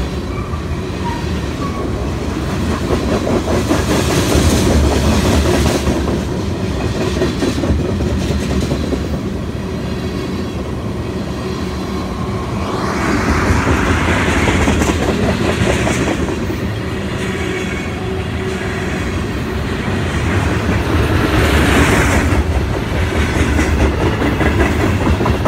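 Canadian National freight train's covered hoppers and tank cars rolling past close by: a continuous low rumble with the clickety-clack of wheels over rail joints. Two louder, hissier stretches come about halfway through and near the end.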